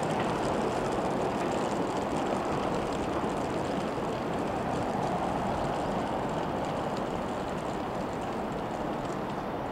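Steady rumble of a distant vehicle, fading slowly toward the end.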